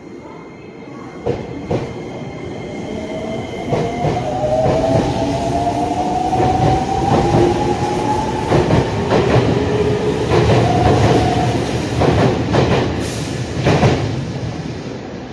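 Tsurumai Line subway train accelerating: its motor whine rises steadily in pitch over the rumble of the running gear, with wheels clacking over rail joints. The noise builds over the first few seconds and eases near the end.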